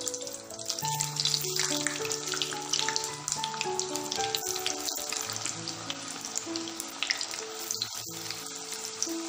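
Freezer-chilled raw potato sticks deep-frying in hot oil, a dense, steady crackling sizzle as more sticks go into the oil. Background music with held notes plays over it.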